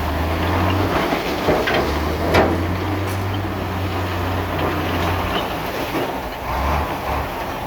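Heavy diesel earthmoving machinery running with a steady low drone, with scattered metallic clanks and knocks, the loudest about two and a half seconds in.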